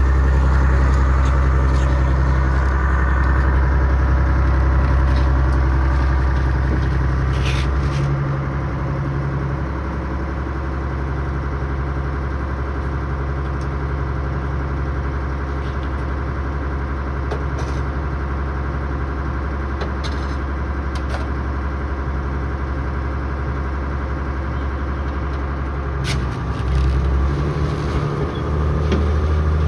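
Diesel engine of an M677 tracked missile transporter running as the vehicle moves slowly over grass, with a few short squeaks and clanks from the running gear. The engine note drops about eight seconds in and rises again near the end.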